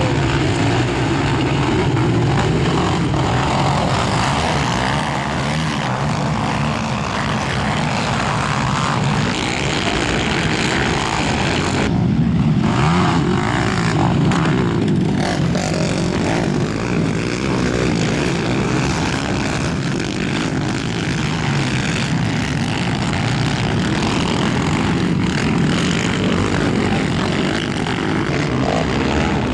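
ATV quad engines racing on a motocross track, a continuous loud mix of engines revving and running.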